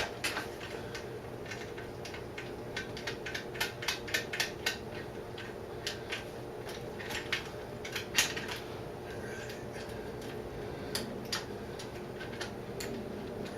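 Irregular metallic clicks and clinks of hand tools against motorcycle parts: a wrench working nuts and bolts on the rear brake torque link and axle. A sharper clank comes about eight seconds in, over a steady low hum.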